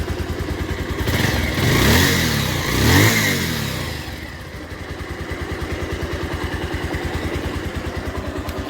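Bajaj Pulsar 180's single-cylinder engine idling with a steady rapid beat, revved twice in quick succession about a second in, then settling back to idle. This is the engine after its timing chain has been set.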